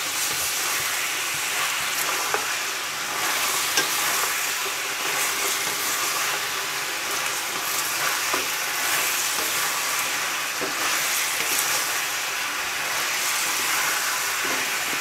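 Mutton pieces sizzling in hot oil in a karahi on high heat while being stirred and turned with a wooden spatula: a steady frying hiss with a few light knocks of the spatula against the pan. This is the high-heat browning (bhuna) stage of the meat.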